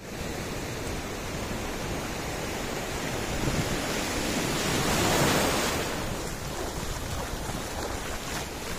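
Sea surf: waves breaking and washing into the shallows, with wind noise on the microphone. The surf swells louder about five seconds in, then eases.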